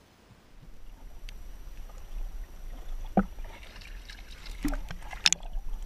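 Near silence at first, then water lapping and sloshing around a camera at the surface, with several sharp splashes from a hooked smallmouth bass thrashing at the surface as it is reeled in.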